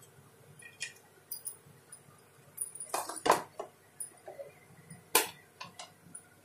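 Scattered light knocks and clinks of a nonstick frying pan being handled on a glass induction cooktop, the two loudest about three and five seconds in, over a faint steady hum.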